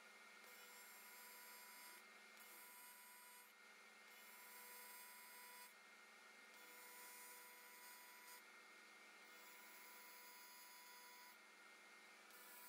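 Near silence: only a faint electrical hum, with thin steady tones that switch on and off every second or two.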